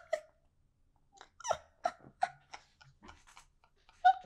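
A man's breathless, wheezing laughter: short squeaky gasps and catches of breath, scattered and irregular, after a hard laughing fit.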